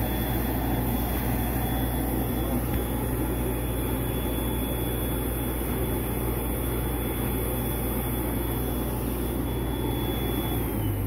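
Radial compressor (side-channel aeration blower) running: a steady electric-motor hum under a constant high whine. Near the end it is switched off and the whine falls in pitch as it spins down.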